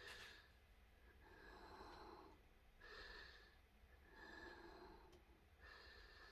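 Faint breathing close to the microphone: about five soft, evenly spaced breaths.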